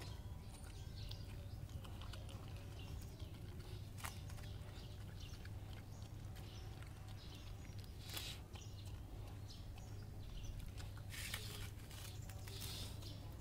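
Dog eating rice from a stainless steel bowl: faint chewing and smacking with occasional sharp clicks, a couple of them standing out about 4 and 8 seconds in and a cluster near the end, over a steady low hum.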